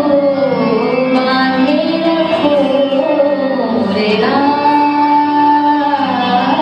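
Music with a woman singing a melodic Indian-style song, the voice sliding between notes and holding a long note about four seconds in.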